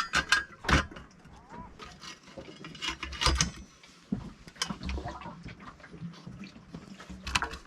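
Scattered clicks and knocks of hand work on metal parts inside the steering mechanism, with a cluster of sharper knocks about three seconds in.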